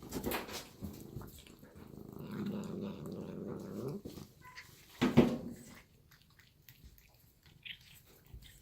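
Melanistic savannah cat growling low and steadily for a couple of seconds as she eats, then one short, sharp, louder sound about five seconds in.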